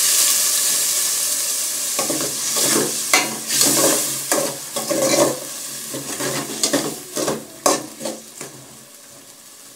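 A little water hits hot fried tomatoes and onions in an aluminium pot and sizzles loudly, added so the tomatoes don't burn. The hiss dies down over a couple of seconds as a metal ladle stirs and scrapes against the pot with quick clicks, which stop near the end.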